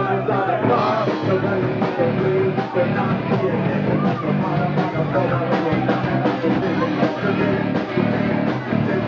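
Rock band playing loudly, with electric guitar, a steady drum beat and singing.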